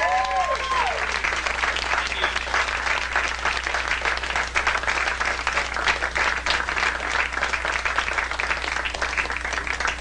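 Audience clapping and applauding steadily, with a brief cheer right at the start.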